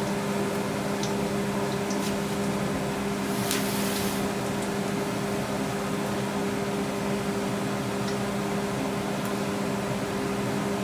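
A steady mechanical hum with a constant low drone, and a brief hiss about three and a half seconds in.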